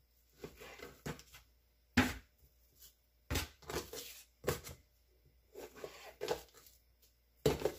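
Kitchen knife sawing through raw New York striploin steak on a plastic cutting mat over a wooden board, with soft scraping strokes and a few sharp knocks against the board.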